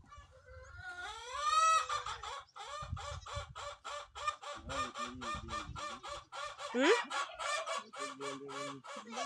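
A chicken clucking: a rising call about a second in, then a fast, steady run of short clucks, about four a second.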